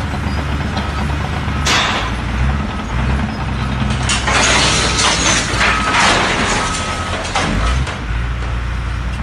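A heavy machine's engine running steadily, with a short hiss of air about two seconds in and a longer hissing burst from about four to seven seconds.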